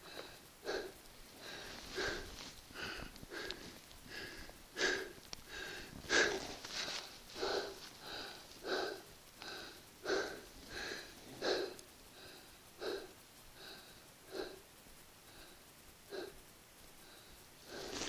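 A person breathing hard in short audible breaths, roughly one a second, spacing out toward the end: a climber catching his breath after stopping a fall down a snow slope with an ice-axe self-arrest.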